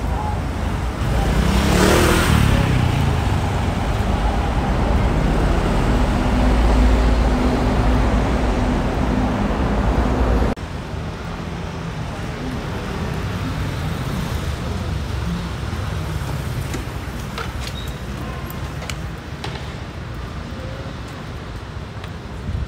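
City street traffic: vehicles running past close by, one going by loudly about two seconds in, with a steady low engine hum under the noise. About ten seconds in the loud traffic noise cuts off suddenly, leaving quieter street background with a few faint ticks.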